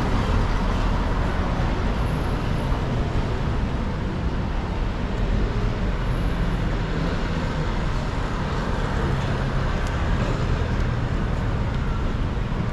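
Steady road traffic noise of a busy city street, with motor vehicles running past.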